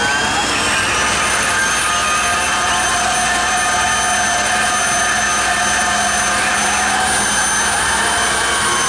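Jet engines of drag-racing vehicles at the starting line, running loud and steady. Their high turbine whine rises over about the first second, then holds at a constant pitch over a steady roar.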